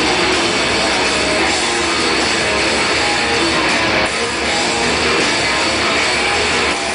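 Metalcore band playing live: loud, distorted electric guitars with drums in a dense wall of sound.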